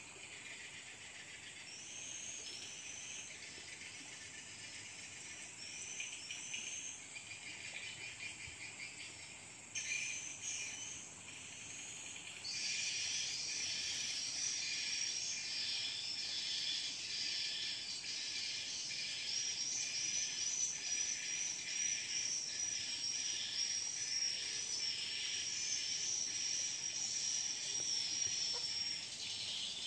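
High-pitched insect chorus. At first it is a string of short calls that rise and fall; from about twelve seconds in a louder, steady, finely pulsing drone takes over.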